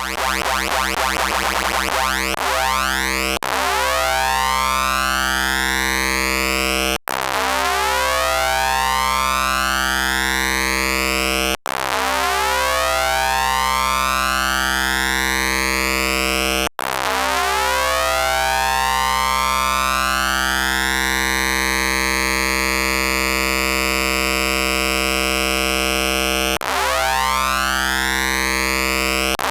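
Eurorack modular synthesizer tone: a triangle wave bit-crushed by a Doepfer A-189-1 bit modifier into a buzzy sound like several stacked pulse-width-modulated pulses. Its overtones are swept upward again and again by a cycling envelope over a steady low pitch. Each sweep restarts abruptly with a brief dropout, five times in all, and the last and longest sweep runs about ten seconds.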